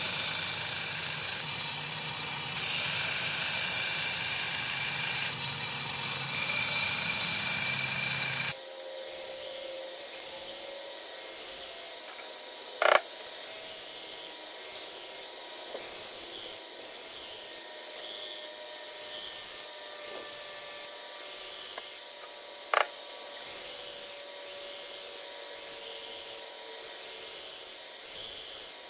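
1x42 belt grinder with a 120-grit Cubitron belt grinding the steel edge of a hatchet: a motor hum under a rushing grinding hiss that swells and eases as the blade meets the belt. About eight seconds in the sound abruptly turns thinner and hissier with no hum, and two sharp clicks come later.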